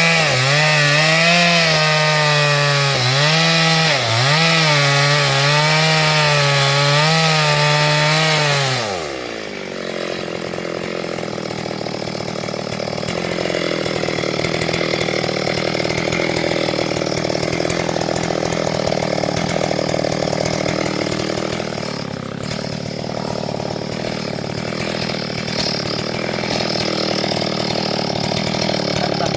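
STIHL MS382 two-stroke chainsaw running near full throttle while cutting hardwood, its pitch sagging and recovering as the chain bites. About nine seconds in the revs drop sharply, and a lower, steadier sound follows, with the saw off the throttle.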